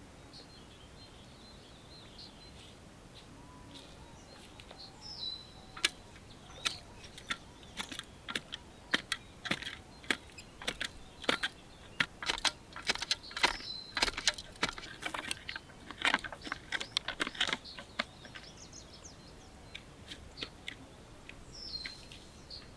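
Birds chirping now and then over a steady outdoor background. In the middle stretch there is a long run of irregular sharp clicks and clinks, the loudest sounds.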